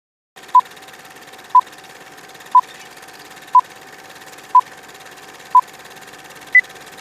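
Electronic countdown beeps: six short beeps at the same pitch, one second apart, then a single higher-pitched final beep. A steady hum and faint hiss run underneath.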